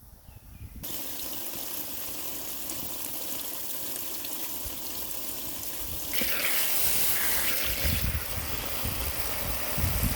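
Water running steadily, starting abruptly about a second in and getting louder for a couple of seconds around the middle, with a few low thumps near the end.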